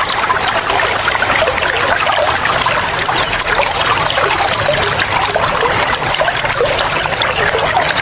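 Water flowing and splashing steadily, like a stream or small cascade, with wild birds chirping over it in quick runs of short, high notes.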